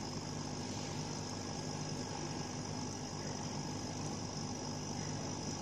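Steady mechanical hum and whir with a high hiss above it, from the running equipment of a large laser cutting machine, not cutting.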